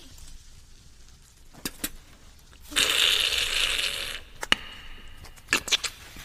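Eggshells cracking in a few sharp clicks. Then about a second and a half of loud sizzling as eggs hit a hot pan, and a few more sharp cracks.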